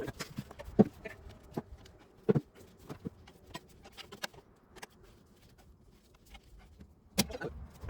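Tyre levers and plastic rim protectors clicking and knocking against a motorcycle wheel rim as a new tyre is levered on by hand. The knocks are irregular, with the sharpest a little under a second in and at about two and a half seconds, and a quick cluster near the end.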